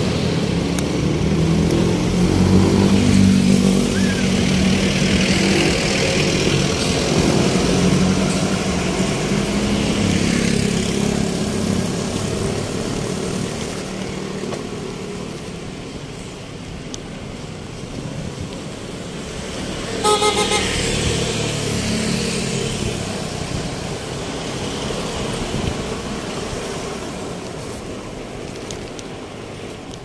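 Street traffic: vehicle engines running close by, loudest in the first dozen seconds, with a short horn toot about twenty seconds in.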